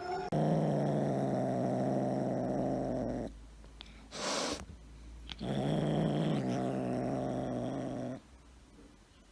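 Domestic cat giving two long, low, steady growls of about three seconds each, with a short burst of hiss between them.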